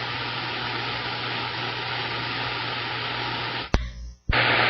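CB radio receiver hissing with static from an open carrier, with a faint steady whistle running through it. The hiss drops out with a click a little before the end, then comes back about half a second later.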